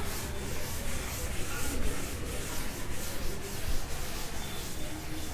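A cloth wiping chalk writing off a chalkboard, in quick repeated back-and-forth strokes of about three a second.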